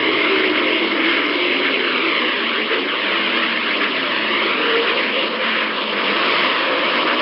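Sonified space radio recording presented as the sound of the Moon: electromagnetic waves converted to audio, heard as a steady hiss with many overlapping whistling tones sweeping up and down.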